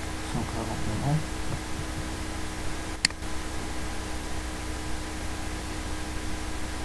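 Steady recording hiss with a low hum. A short murmured voice sound comes about half a second in, and a single sharp click about three seconds in.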